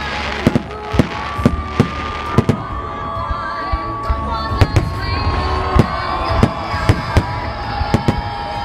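Aerial firework shells bursting overhead in a rapid, uneven string of sharp bangs, about two a second.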